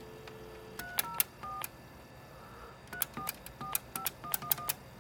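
Payphone dial tone in the handset, cut off after under a second by touch-tone (DTMF) dialing. The key beeps come with a click from each keypress, about three at first and then a quicker run of about eight after a pause, as a phone number is punched in.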